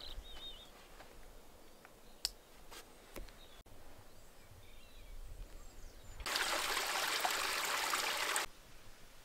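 Small stream trickling over mossy rocks, loud for about two seconds late on, starting and stopping abruptly. Before it, quiet outdoor ambience with a brief high chirp near the start and a few light clicks.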